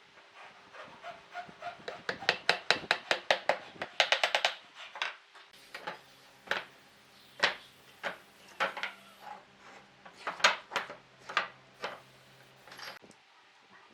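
Hand tool scraping or rasping on wood in repeated strokes: a quick run of about five strokes a second, then slower single strokes, roughly one a second.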